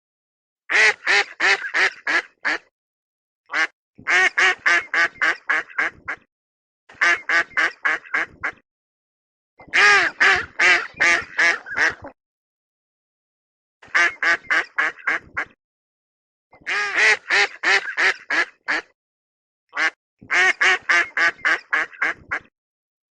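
A duck quacking in quick runs of about five to eight quacks, roughly three a second, each run lasting about two seconds, with dead-silent gaps of about a second between runs.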